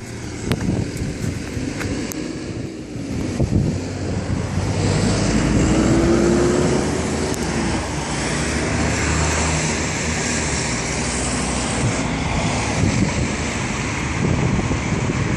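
Wind rumbling on the microphone, mixed with road traffic noise, including a vehicle passing partway through.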